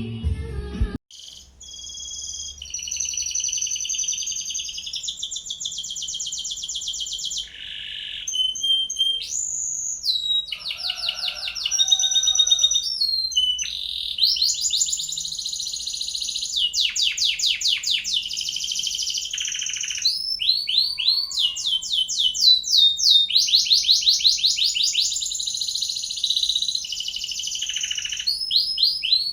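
Songbird singing a long, varied song of fast repeated trills and high whistled phrases, with brief pauses between phrases: a masteran, a tutor recording played to teach caged songbirds.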